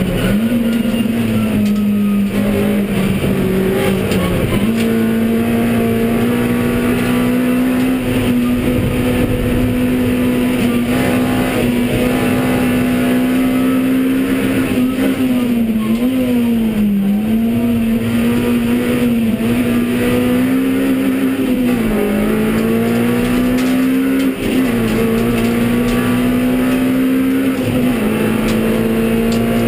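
Honda Civic Type R EP3's 2.0-litre four-cylinder i-VTEC engine running hard at high revs, heard from inside the stripped race car's cabin. Its pitch holds high, dipping briefly and climbing back again several times, over road and wind noise.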